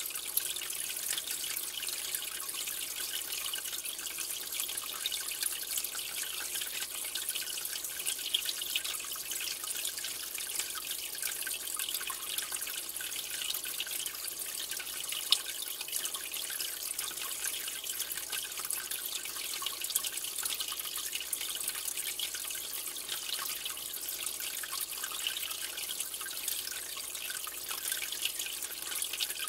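Aquarium water trickling and splashing steadily, with fine dripping and bubbling crackles and one sharper click about halfway through.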